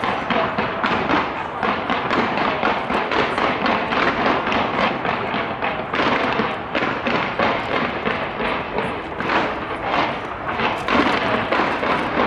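Large fireworks display going off in a continuous barrage: dense bangs and thuds several times a second over a steady crackling haze.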